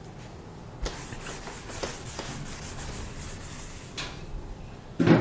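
A chalkboard duster rubbing against a chalkboard in wiping strokes, erasing chalk writing, with a sharp tap about four seconds in.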